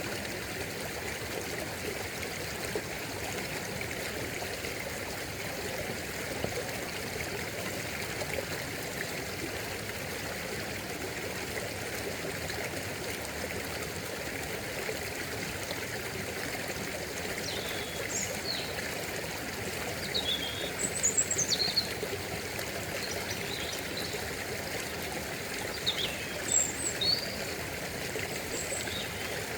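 Stream water running and trickling steadily. Over the second half, a bird calls a few times in short, high chirps.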